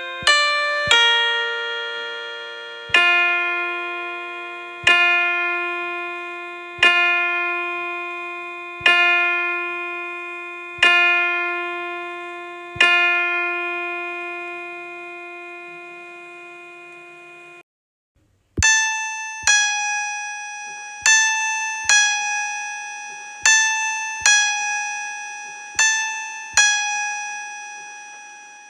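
Piano notes imitating church bells tolling. First a slow, even toll about every two seconds, the last note left to ring out. After a brief silence a faster, higher peal follows, a strike a little under every second.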